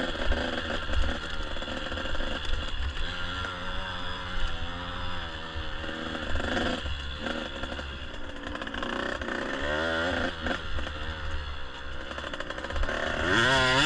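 Dirt bike engine running as the bike is ridden, its pitch rising and falling with the throttle and climbing sharply in a hard rev near the end.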